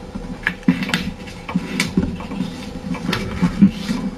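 A sheet of paper being folded and creased by hand on a table: a run of short, irregular rustles and crinkles as fingers handle the sheet and press the fold flat.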